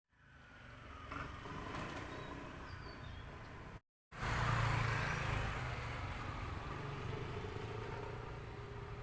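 Yamaha DT125 two-stroke single-cylinder motorcycle engine running, heard in two short clips separated by a brief cut to silence. It is loudest just after the cut, about four seconds in, then settles to a steadier, quieter run.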